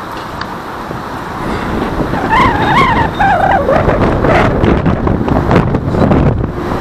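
Road traffic noise that grows louder about a second and a half in. A brief wavering squeal rises and falls around the middle.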